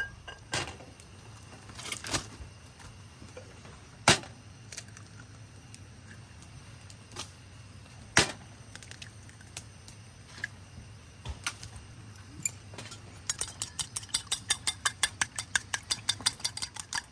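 Scattered sharp clicks and knocks, then a quick, even run of clicks, about eight a second, from about three-quarters of the way in.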